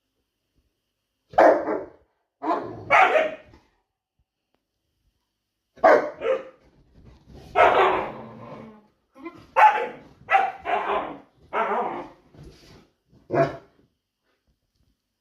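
Dog barking in play, about ten short barks in irregular bunches, with one longer drawn-out bark around the middle.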